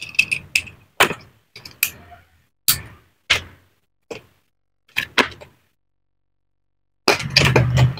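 Plastic building bricks and parts clicking and knocking against each other as they are handled and fitted together: about a dozen separate clicks, spaced irregularly, then a denser clatter of handling noise near the end.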